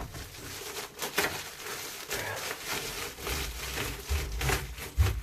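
Continuous rustling and rubbing as trim lining is pressed and smoothed by hand with a cloth onto a freshly sprayed van wall panel, with dull bumps against the panel.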